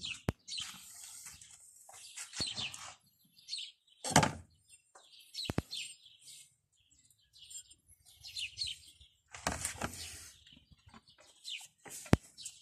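Small birds chirping on and off, with a few sharp knocks and clicks and some handling noise. The loudest knocks come about four seconds in and near the end.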